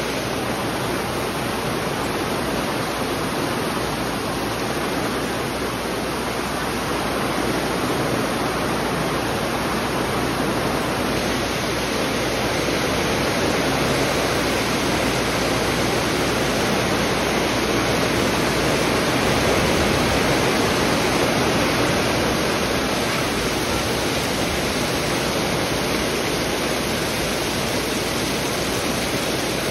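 Heavy rain pouring down steadily, falling on the tent canopy and the grass, with water streaming off the tent's edge.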